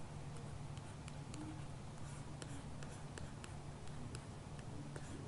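Faint, irregular light ticks of a stylus tapping on a tablet while an equation is handwritten, about two to three a second, over a low steady hum.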